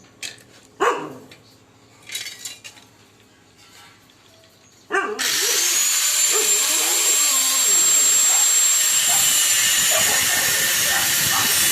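A few clicks and knocks, then about five seconds in a power tool starts suddenly and runs with a loud steady hiss and a high whine that rises briefly before holding level.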